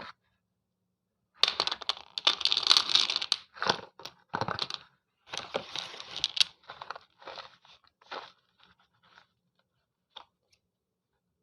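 Slate pencil being bitten and chewed, with dry, gritty crunching. It starts about a second and a half in, is loudest over the next few seconds, then thins to a few faint crunches and a single click.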